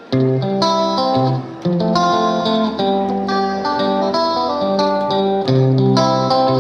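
Background music with plucked guitar notes over sustained low bass notes, starting right at the beginning after a brief gap.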